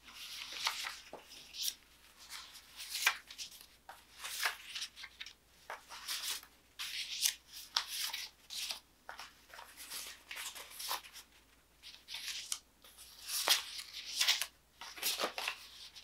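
Printed photographs rustling and crinkling as hands pick them up, bend them and lay them out on a sheet of cardboard, in short irregular bursts.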